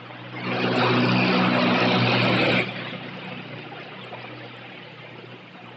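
Motor vehicle passing close on the road, its engine and tyre rush swelling about half a second in, then cutting off suddenly about two seconds later. A low engine hum continues underneath.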